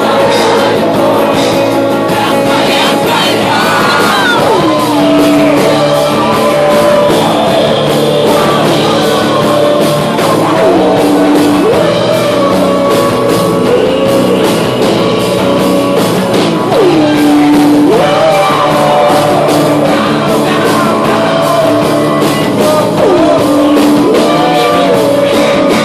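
Live acoustic rock song: a singer holding long notes that slide up and down, over steadily strummed guitar.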